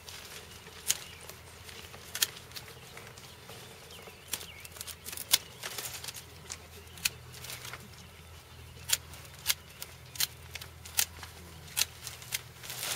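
Hand pruning shears snipping through dormant grapevine canes: a string of sharp clicks, a dozen or more at irregular intervals.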